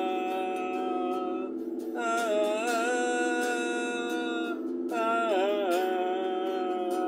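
A man singing long, drawn-out notes with small pitch bends, three phrases with short breaks between them, over a strummed electric guitar.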